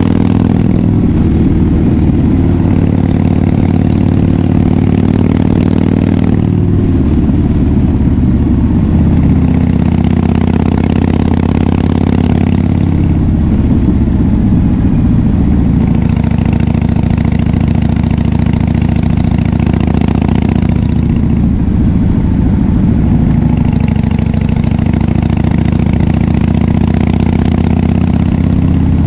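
2011 Harley-Davidson Fat Bob FXDF's V-twin engine running through a KessTech aftermarket exhaust while riding. The engine note is loud and steady, and its pitch shifts several times as the throttle and gears change.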